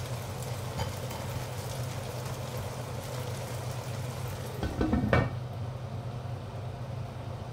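Water spinach and tomatoes sizzling in a wok, then a glass lid set down on the wok with a short clatter about five seconds in, after which the sizzle is muffled.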